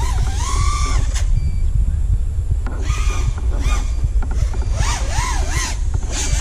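FPV racing quadcopter's Emax Eco 2306 1700kv brushless motors spinning Dalprop Fold 5.1-inch folding propellers, their whine rising and falling in pitch with quick throttle punches. A steady low wind rumble sits under it.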